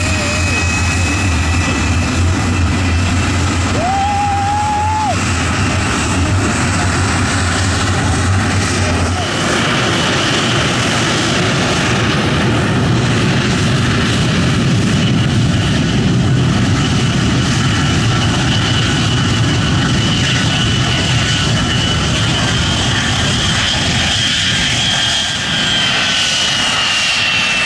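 Taxiing jet fighters' engines running at ground idle: a steady jet rush with a thin high turbine whine over it, the whine sliding down in pitch near the end.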